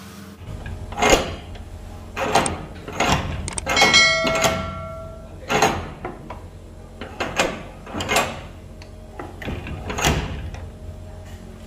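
Homemade sliding door bolt worked by hand: a ribbed metal rod pushed back and forth inside a polished steel tube, each stroke a metallic scrape ending in a clack, repeated roughly every second. One stroke about four seconds in leaves a brief metallic ringing.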